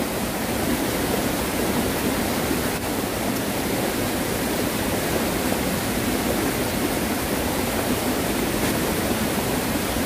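Mountain stream in flood after days of typhoon rain, rushing steadily over rocks.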